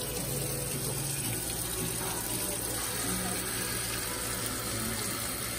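Tap water running steadily onto the lid of a pressure cooker standing in a stainless steel sink, cooling it so the pressure inside drops before it is opened.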